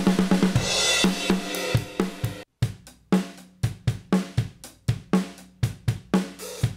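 Drum kit playing: a busy fill under a ringing cymbal crash, a short break about two and a half seconds in, then a steady beat of about two hits a second.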